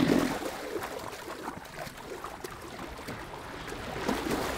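River water splashing and sloshing as an African elephant wades through it among hippos, with one louder burst of sound right at the start.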